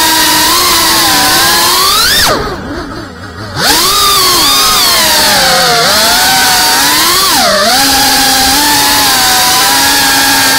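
Geprc Cinelog 35 FPV drone's brushless motors and propellers whining, the pitch climbing and falling with the throttle. About two seconds in the pitch rises, then the throttle is chopped and the whine drops away for about a second before punching back in; later the pitch dips briefly again.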